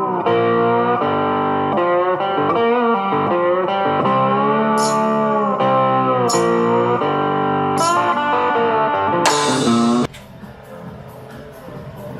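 Background music led by a plucked electric guitar playing a melody, which cuts off suddenly about ten seconds in, leaving a faint steady hiss.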